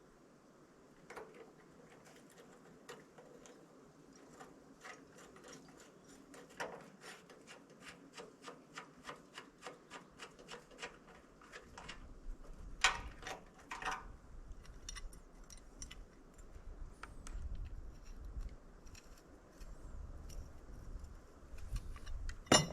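A hand ratchet wrench clicking in quick runs as bolts are backed out, with a few louder metal clacks. A single sharp metal clank near the end is the loudest sound.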